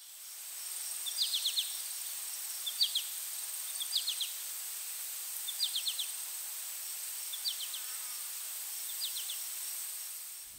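Steady high-pitched insect drone with a bird repeating a short call of three or four quick notes, six times, about every one and a half seconds.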